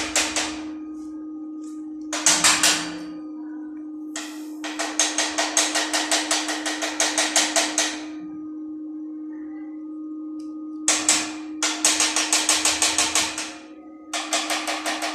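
Chipping hammer tapping rapidly on a welded steel tube frame, knocking slag off the fresh welds. It comes in several bursts of quick, sharp metallic strikes, about six a second, with short pauses between them.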